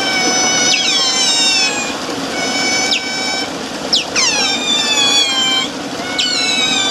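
Eurasian otters calling: a string of shrill, high-pitched squealing calls, each opening with a sharp downward sweep and then held for a second or more, several voices overlapping.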